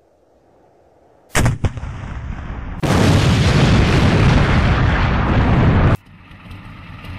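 Battle sound effect of a tank cannon: one sharp, loud shot about a second in, with a few quick cracks after it, then a long, heavy rumbling blast that cuts off suddenly near the end, leaving a quieter rumble.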